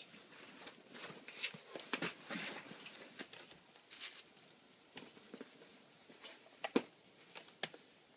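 Rustling and tapping of packing materials being handled. The noises come in irregular bursts, busiest in the first half, with a few sharp clicks and the loudest snap a little before the end.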